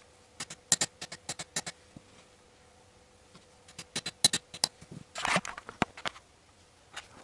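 Light hammer taps on a seal-installing drift, driving valve stem oil seals onto the valve guides of a VAZ-2111 eight-valve cylinder head. There is a quick run of about eight taps, then a second run of taps a few seconds in, and a brief scuffling handling noise with a couple of knocks near the end.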